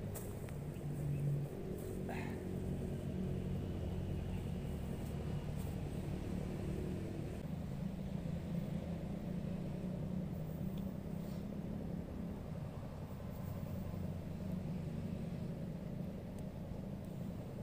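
Steady low outdoor rumble with no clear source, such as distant road traffic or wind on the microphone.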